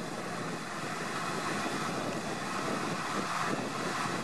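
Vehicle engine running in the distance: a steady noise that slowly grows a little louder.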